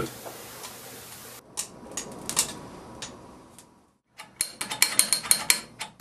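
Small metal clicks and clinks from a hand-forged iron latch being handled: a few scattered clicks, then after a short gap a quick run of sharp clicks.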